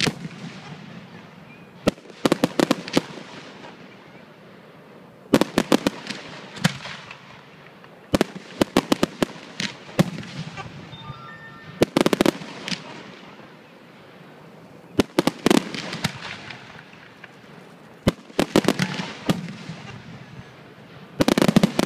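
Fireworks display: aerial shells bursting in clusters of several sharp bangs, a new volley about every three seconds, each cluster trailing off in a rumbling echo.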